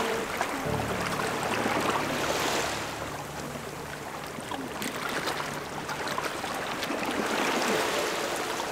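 Shallow seawater splashing and sloshing against rocks as people wade and reach underwater, feeling among the rocks for sea snails. A low steady hum runs under the water sound from about a second in until about halfway through.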